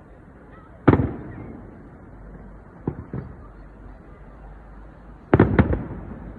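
Firework shells bursting in the sky. There is one loud bang about a second in, two lighter bangs around three seconds, then a quick run of three bangs near the end, each trailing off as it echoes.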